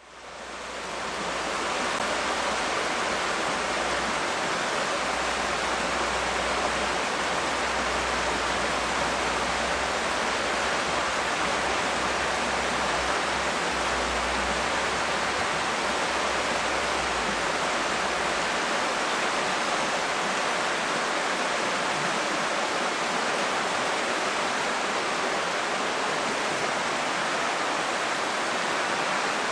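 Steady, even rushing noise that fades in over the first two seconds and then holds unchanged.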